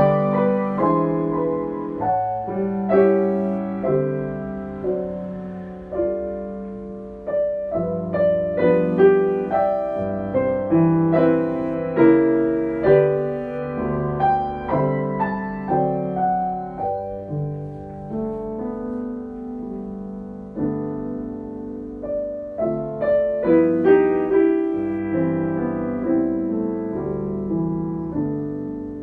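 Solo piano music, slow and gentle, with notes struck and left to ring.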